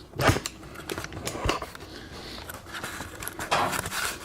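Scattered clicks and knocks of handling, the loudest shortly after the start and a cluster near the end.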